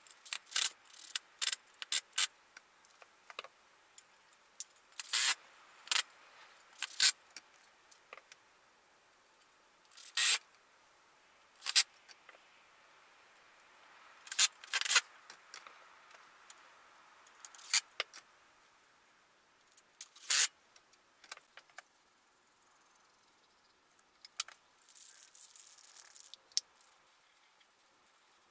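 Cordless Ryobi drill driving screws into a wooden post in many short bursts, a second or two apart, fastening metal hooks. Near the end comes a short hiss of an aerosol spray can.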